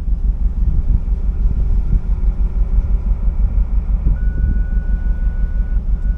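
Low, uneven outdoor rumble. A steady high tone comes in about four seconds in and lasts a second and a half, breaks briefly, then returns.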